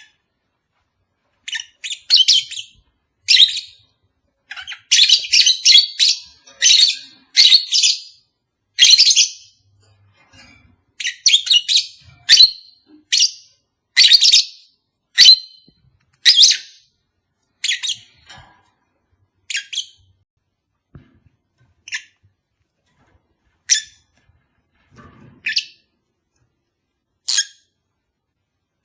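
Lovebird calls: short, shrill chirps between about 2 and 8 kHz, coming thick and fast for the first half, then thinning to single calls about every two seconds.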